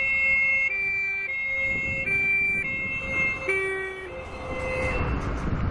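Two-tone siren of a vintage fire truck, alternating a high and a low note about every 0.7 s as the truck drives past. The siren stops about five seconds in, leaving the truck's engine and tyre noise.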